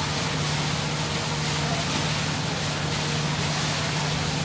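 A marine engine running steadily: a constant low hum under an even wash of noise.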